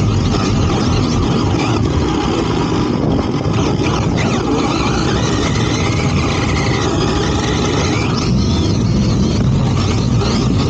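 Arrma Typhon RC buggy driving fast over desert sand, heard from a camera riding with it: a loud, steady rush of wind and tyres churning sand. Under it, the electric motor's faint whine rises and falls about halfway through.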